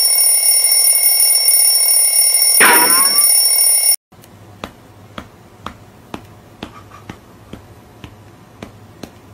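Electronic alarm clock ringing loudly and steadily, with a short falling sweep about three seconds in. It cuts off abruptly about four seconds in. Faint, regular taps about two a second follow.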